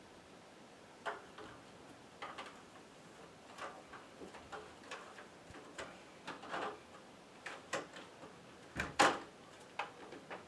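Scattered light clicks and knocks at an uneven pace, with one sharper, louder knock about nine seconds in: handling noise while working on a wooden panel structure.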